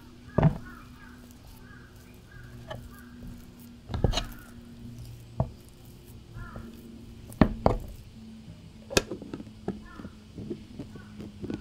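Silicone spatula working sticky yeast dough in a plastic container: soft, wet squelches of the dough, with several sharp knocks of the spatula against the container.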